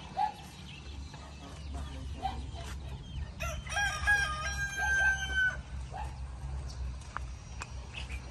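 A rooster crows once, a long call of about two seconds near the middle, with short chicken clucks before and after it.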